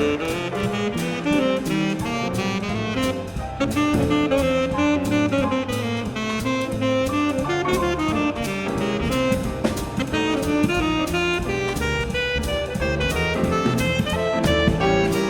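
Jazz quintet playing: a saxophone line over drum kit, with piano and bass underneath.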